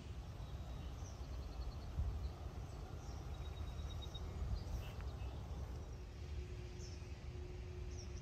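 Songbirds chirping faintly and sparsely over a steady low rumble, with a brief high whistled note a few seconds in.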